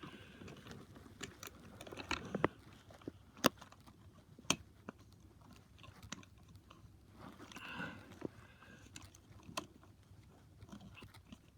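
Plastic toy train parts being handled and pried apart by hand: scattered small sharp clicks and taps with quiet between, and a soft scraping rustle about eight seconds in.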